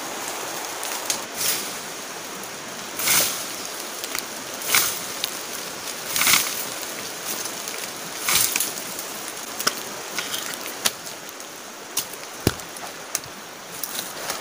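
Branches and vines being pulled and cut by hand: a string of short swishes and sharp snaps every second or two, over a steady rushing hiss.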